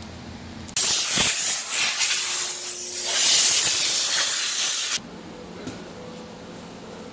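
Compressed-air blow gun on a shop air hose, hissing loudly for about four seconds, starting suddenly about a second in and cutting off suddenly.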